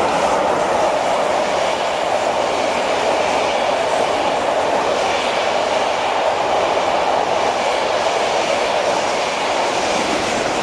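Steam-hauled passenger train passing close by at speed: the locomotive goes by at the start, then a long rake of coaches runs past, wheels clattering over the rail joints in a steady, loud noise.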